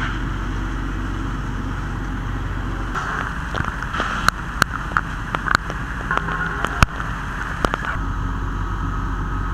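Fire apparatus engine and pump running with a steady low drone under a hiss of water spray from a hose stream. From about four to eight seconds in, a string of sharp cracks and snaps sounds over it.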